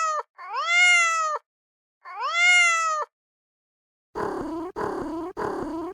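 Kitten meowing: the end of one meow, then two more, each rising and falling in pitch. From about four seconds in, a low, rough purr in short, even pulses.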